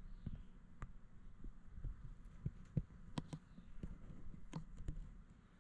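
Irregular clicks and knocks of a GoPro camera being handled and fitted onto its bicycle handlebar mount, heard through the camera's own body, over a faint low rumble.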